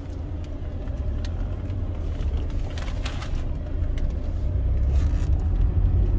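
Car interior noise: a steady low rumble of engine and road heard from inside the cabin, slowly growing louder, with a few faint light clicks.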